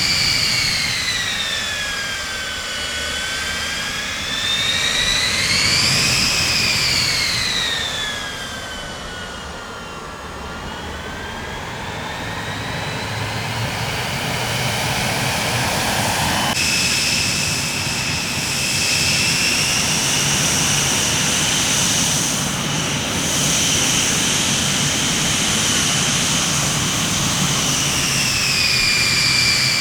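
Jet airliner engines whining over a steady roar. The pitch sinks, rises and sinks again, then about halfway through switches abruptly to a higher, steady whine.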